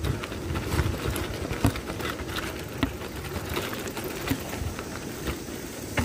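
Motorcycle moving slowly over a rough off-road dirt track: a low engine rumble under irregular clicks, knocks and rattles as the bike jolts over stones.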